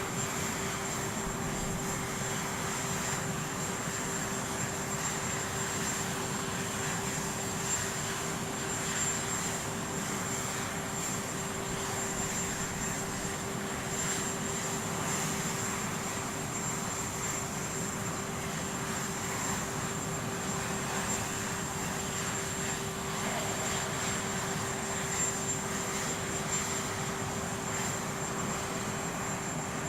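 Aircraft engines running steadily, a constant rushing noise with a steady whine.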